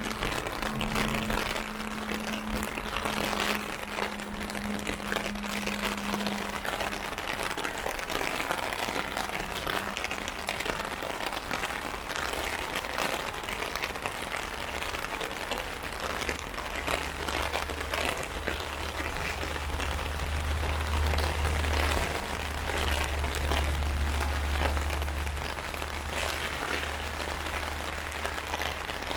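Heavy rain falling on an umbrella overhead: a dense, steady hiss thick with sharp drop hits. A low hum sounds under it for the first few seconds, and a deeper low drone comes in past the halfway mark and fades a few seconds before the end.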